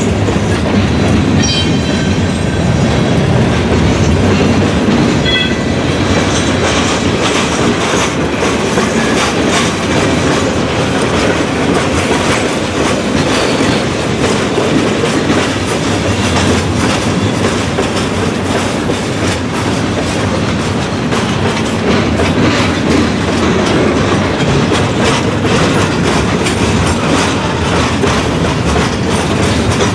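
Freight train of covered hoppers and tank cars rolling past, a steady rumble with the wheels clicking rhythmically over rail joints. A couple of faint, brief high squeals come in the first few seconds.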